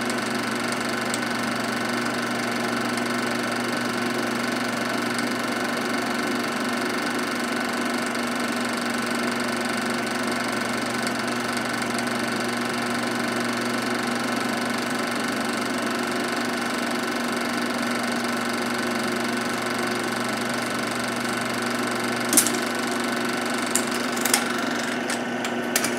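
Film projector running with a steady mechanical whir and hum, a few sharp clicks near the end.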